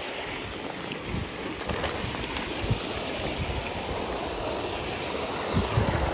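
Steady rush of water from an outlet pipe splashing onto a pond's surface. Low buffeting of wind on the microphone comes and goes, strongest near the end.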